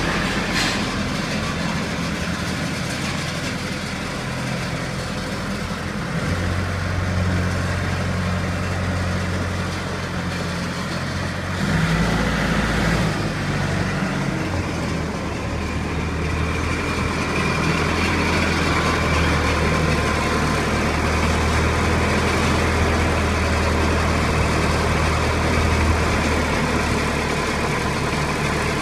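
Loader tractor's engine running as it drives slowly with a load hanging from chains, with a louder spell about twelve seconds in.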